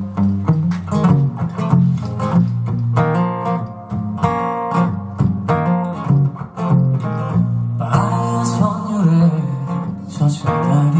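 Acoustic guitar playing a song's instrumental intro: repeated strummed chords over a steady bass line.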